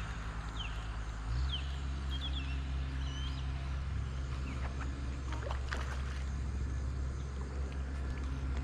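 A steady low drone runs throughout and gets louder about a second and a half in. A few short, high, falling bird chirps come over it early on, and a scatter of faint clicks falls in the middle.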